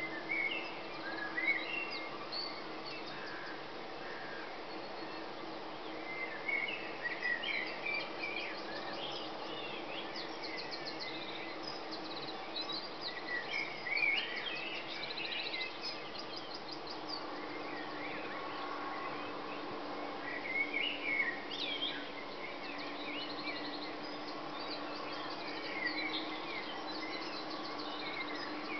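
Dawn chorus: several songbirds singing at once, with overlapping chirps, whistles and rapid trills, over a steady low hum.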